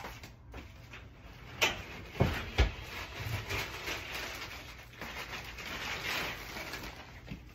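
Handling noise from things being moved and fetched: a few sharp knocks and thumps about two seconds in, then several seconds of rustling and shuffling.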